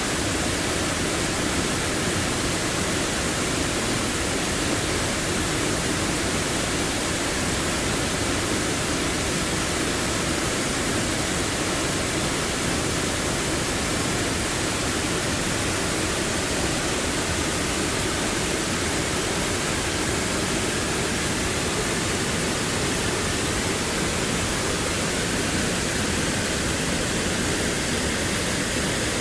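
Large waterfall roaring steadily, a dense wash of falling water with no let-up.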